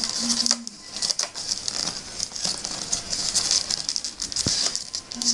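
Rolled newspaper tubes rustling and crackling as they are woven and pulled tight by hand, with many small clicks.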